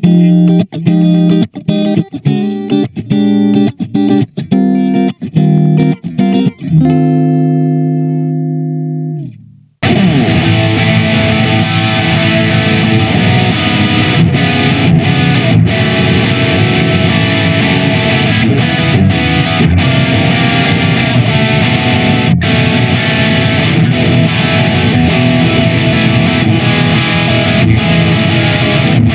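SQOE SEST250 electric guitar with HSS pickups played through an amp. Separate picked notes ring out, and a held chord fades away about a third of the way in. After a brief silence, dense, driven playing with a distorted tone runs on.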